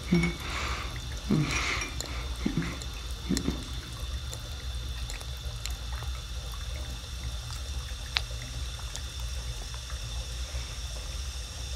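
A man gives several short, muffled groans and a breath in the first few seconds. Under them runs a steady low hum with a faint water-like hiss.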